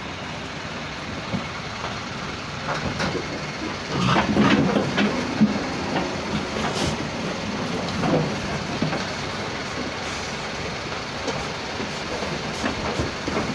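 Steady rumble of a livestock lorry loaded with pigs, with scattered knocks and rattles against its metal sides, louder for a second or two about four seconds in.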